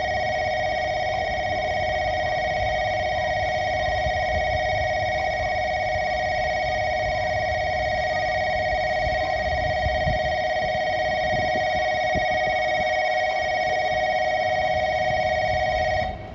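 Station platform approach bell ringing continuously, warning that a train is approaching, over a low rumble. It cuts off suddenly near the end.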